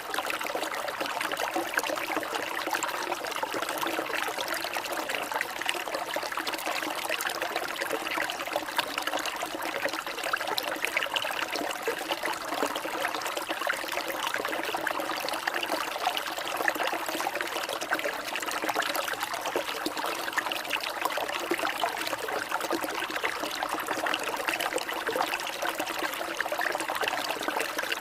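Water trickling and splashing steadily in a continuous stream, with no change in level.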